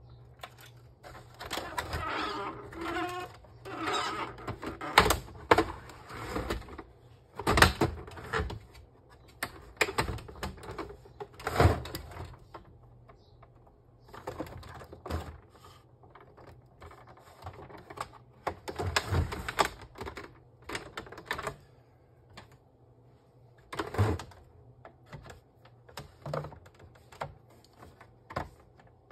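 Plastic housing and scanner unit of an Epson L3150 printer being handled: irregular clicks, knocks and scraping as the parts are lifted and set in place, with a few sharp knocks standing out.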